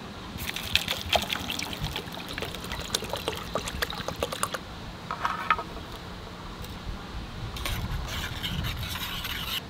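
A drink poured from a stainless steel insulated bottle into a titanium mug, with splashing and gurgling that are busiest over the first four seconds or so.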